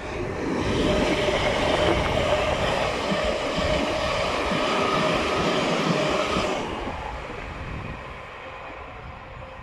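Thameslink Class 700 electric multiple unit passing, a dense rumble of wheels on rail with a steady whine through it. It builds over the first second, holds loud for several seconds, then fades as the train draws away.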